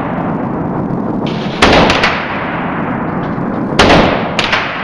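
Rifle fired twice, about two seconds apart, each shot followed by a long echo off the walls of an indoor range and a fainter crack soon after.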